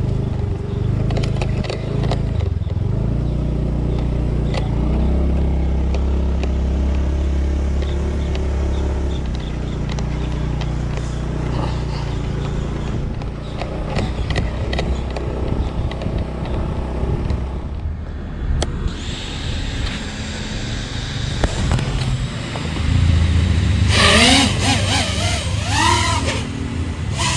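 A small motor scooter's engine runs as it is ridden along a rough dirt path, with knocks and rattles from the bumpy track. Near the end it gets louder, with a short stretch of rising and falling pitches.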